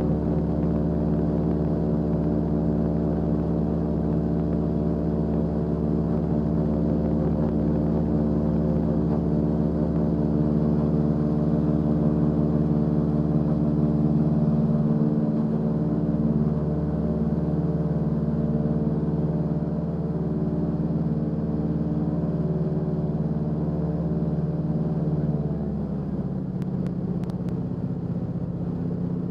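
Floatplane's engine and propeller at takeoff power, a loud steady drone. About 26 seconds in, as the plane climbs away from the water, it drops a little and changes tone.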